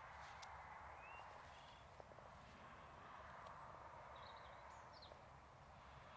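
Near silence: faint, steady outdoor background hiss, with a few small bird chirps about a second in and again after four seconds.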